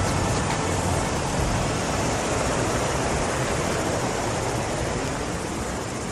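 Steady rushing of river water, an even noise.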